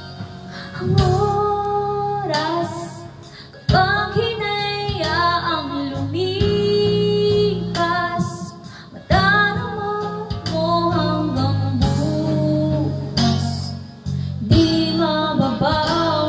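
A woman singing into a handheld microphone over guitar accompaniment. She sings in phrases with long held notes, pausing briefly for breath between them.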